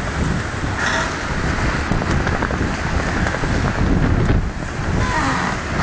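Gale-force wind, about force 8 to 9, buffeting the microphone in a loud, unbroken rumble.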